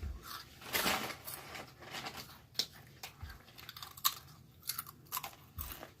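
Irregular crunching, chewing and rustling close to the microphone, with scattered small clicks: someone eating waffles.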